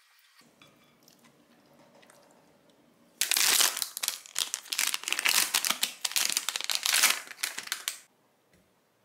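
A plastic ice-lolly wrapper crinkling loudly as it is torn open and peeled off the bar. It starts about three seconds in and lasts about five seconds.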